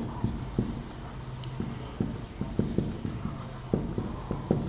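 Marker pen writing on a whiteboard: a run of short, unevenly spaced taps and strokes as a word is written out.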